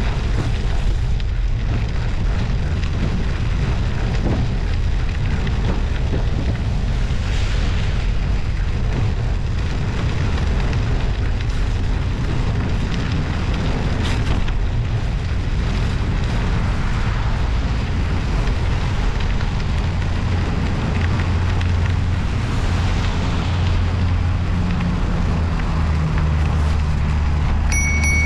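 Steady wind rumble on the microphone of a bicycle-mounted action camera while riding, over the road noise of studded winter tyres on a snowy road. Near the end a motor vehicle's low hum comes in, and right at the end a high electronic beep sounds.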